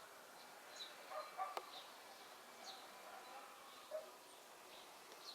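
Quiet background with a few faint, short bird chirps and one sharp click about a second and a half in.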